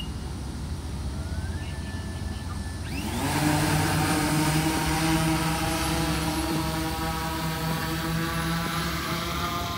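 A delivery drone's rotors spin up with a rising whine about three seconds in, then run at a steady pitched hum over a low background rumble.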